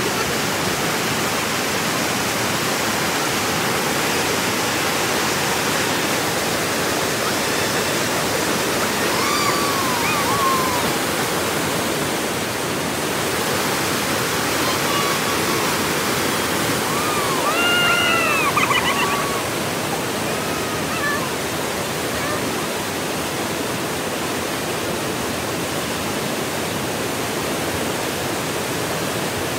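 Steady rushing roar of a high, fast river pouring over rock ledges in whitewater rapids. A few brief rising-and-falling calls sound faintly over it around the middle.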